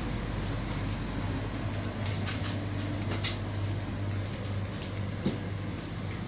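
Steady low hum of a shop's background noise, with a few faint clicks and taps about two, three and five seconds in.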